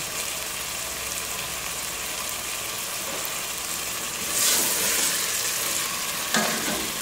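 Chicken pieces and masala frying in ghee in a steel pot, a steady sizzle. About four seconds in, a wooden spoon starts stirring and turning the pieces, and the sizzle grows louder.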